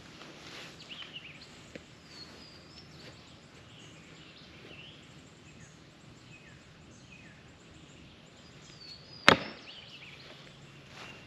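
A thrown hand axe hits a log-round target once with a single sharp impact about nine seconds in, the blade sinking into the wood. Faint bird chirps sound before it.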